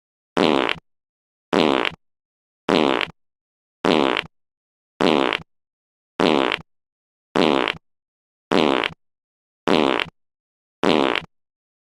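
One fart sound effect played on a loop: about ten identical short farts, one a little over a second apart, with silence between them.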